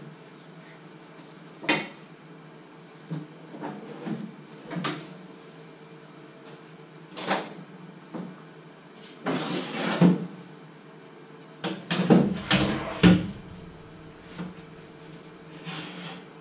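A series of clunks and knocks from things being handled on a kitchen worktop, a few single knocks and then two busier bursts of clatter and scraping near the middle and about three-quarters of the way through, over a faint steady hum.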